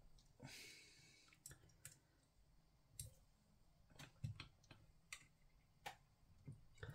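Faint, irregular metal clicks and taps of a rotisserie fork and its screw being fitted and tightened on the spit, with a brief rustle about half a second in.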